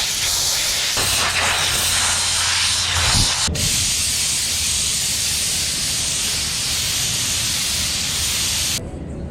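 Compressed air from an air hose blowing dust out of a machine's air filter element: a steady, loud hiss that breaks off for an instant about three and a half seconds in and stops shortly before the end.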